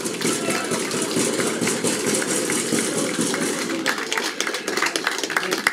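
Crowd of football spectators cheering and shouting together, with scattered clapping joining in about four seconds in.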